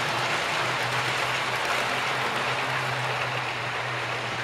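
Model railway trains running on the layout: a steady hiss and rattle of wheels on the track with a steady low hum underneath.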